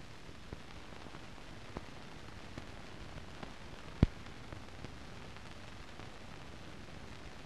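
Steady hiss from the blank soundtrack of a silent film, with scattered faint crackles and one loud pop about four seconds in.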